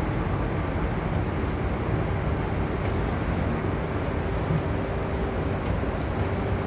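Jumbo Ferry car ferry's engines and propellers working as it berths alongside the quay, a steady low rumble with a faint constant hum over churning water.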